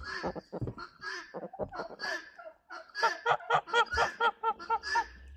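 Domestic geese calling: harsh, rasping calls at first, then, about three seconds in, a fast run of short honks, roughly five a second, for about two seconds.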